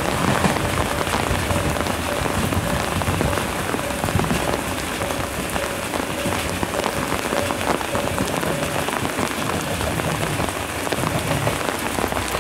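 Steady heavy rain falling on the station platform and tracks, a dense hiss full of fine drop ticks. Under it, in the first seconds, a low rumble fades as the JR Shikoku 2000 series diesel train runs away down the line.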